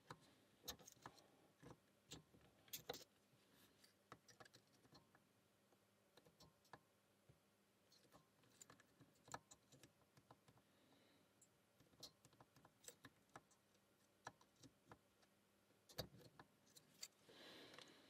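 Faint, irregular metallic clicks and ticks of a lock pick working the rotating wafers of a Fichet Bauche M2 safe lock under light tension, amid near silence; a few clicks stand out, around three seconds in and again near the end.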